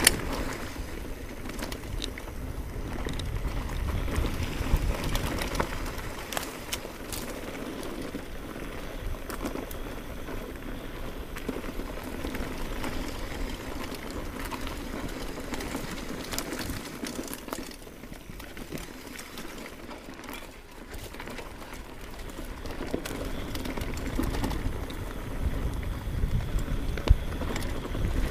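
Orbea Alma hardtail mountain bike riding along a grassy dirt trail: steady tyre and trail noise with a low rumble, and scattered clicks and rattles from the bike going over bumps, with a sharper knock at the start and another near the end.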